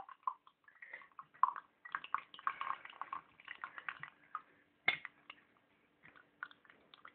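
Thin stream of liquid trickling and dripping from a snail-shaped teapot's spout into a glass, in irregular small splashes, with one sharper tap about five seconds in.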